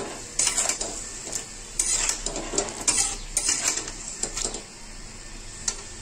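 A spatula scraping and knocking against a metal kadhai, stirring drumstick and potato pieces in a thick masala paste, with a light sizzle of frying underneath. The stirring strokes stop about four and a half seconds in.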